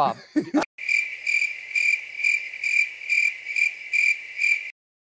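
Cricket chirping sound effect: a high trill pulsing about twice a second, cutting off suddenly near the end.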